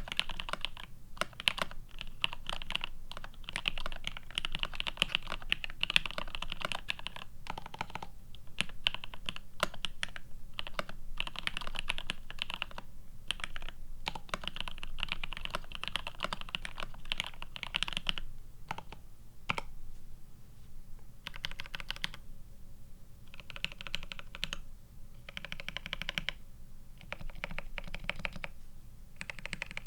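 Typing on a GRID650 mechanical keyboard with C³Equalz x TKC Tangerine linear switches, plateless and PCB-mounted, with GMK Olivia++ keycaps. The keystrokes come in quick runs of clicky clacks with short pauses between them.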